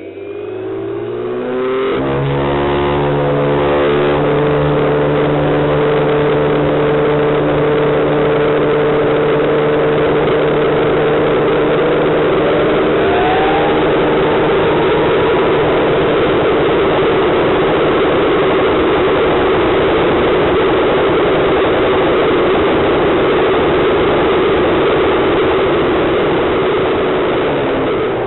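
Vario UH-1D Huey scale radio-controlled helicopter winding up to speed on the ground: a rising whine that levels off after about two seconds, then runs steadily. A faint second whine rises about halfway through.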